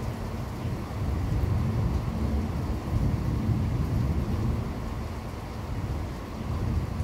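Rolling thunder from a severe thunderstorm, a deep continuous rumble that swells about a second in, peaks near the middle and eases off again.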